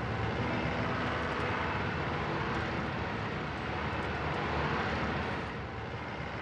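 Minibus driving fast on a highway: a steady rush of engine and road noise, easing slightly near the end.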